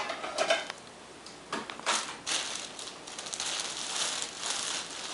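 Plastic trash bag full of stuff crinkling and rustling as it is grabbed and pulled about, in irregular bursts, the loudest about two seconds in.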